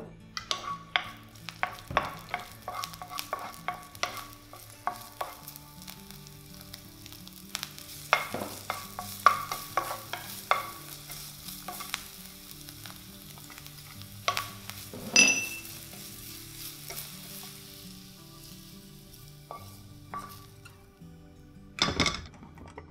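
Chopped dried radish sizzling in oil in a frying pan, stir-fried with a wooden spatula that knocks and scrapes on the pan again and again. Near the end there are a few louder knocks.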